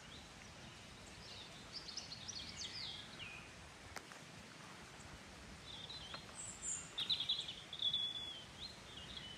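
Faint birdsong in open countryside: a short run of high chirps about two seconds in, and a longer run of chirps from about six seconds in.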